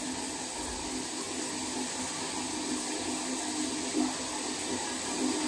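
Shower running: a steady hiss of spraying water.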